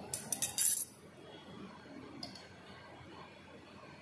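Laboratory glassware clinking: a quick run of sharp glass-on-glass clinks in the first second, then one faint clink about two seconds in.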